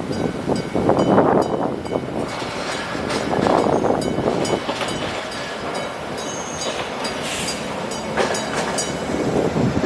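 Buffalo Metro Rail light-rail train on the track, a steady rumble with scattered rail clicks and faint metallic ringing.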